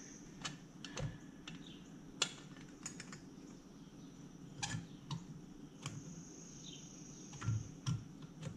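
Irregular light clicks and taps as carburetor air horns are worked by hand into the aluminum plate over the carburetors of a 1997 Honda Magna 750 V4, over a faint steady hum.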